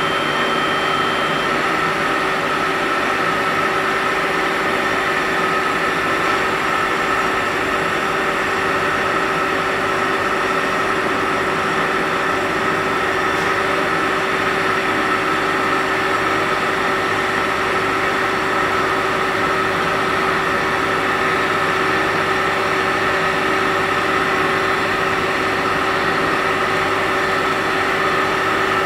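EXLAS X4i 1410 CO2 laser engraving and cutting machine running while it works acrylic: a steady mechanical hum with several steady whining tones, unchanging throughout.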